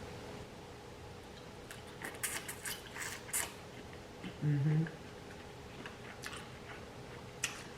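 Close-miked mouth sounds of eating buttery shrimp: a run of wet smacks and clicks about two seconds in, a short hummed 'mm' of enjoyment, and another click near the end.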